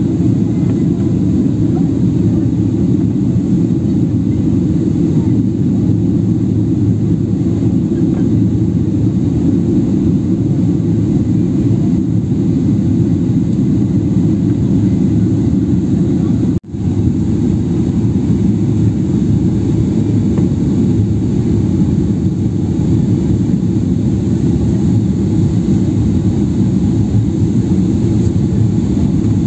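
Steady low rumble of an airliner's engines and rushing air, heard inside the passenger cabin during the descent to land. There is one brief dropout a little past halfway.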